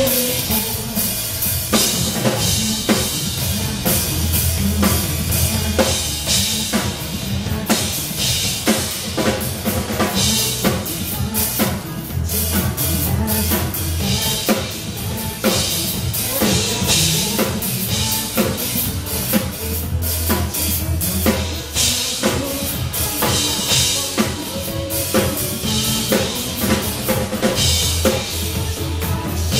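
Drum kit played live, with bass drum, snare and rimshots in a fast, busy beat over recorded backing music with a steady bass line.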